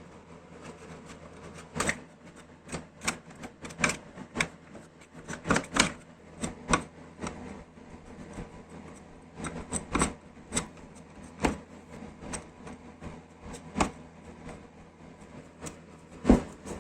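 Irregular clicks and knocks of hard parts and hand tools being handled during a belt sander restoration, coming in uneven clusters, with one louder knock near the end, over a steady low hum.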